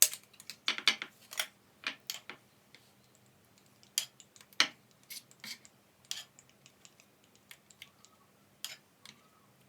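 Irregular light clicks and taps of small objects being handled, a quick cluster in the first couple of seconds, two sharper knocks around four and four and a half seconds in, then a few softer scattered taps.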